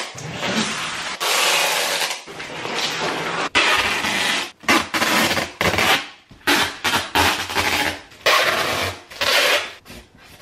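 Brown packing tape being ripped off the roll and pressed down over cardboard box flaps, in repeated rasping pulls. The pulls are about a second long at first, then come shorter and quicker.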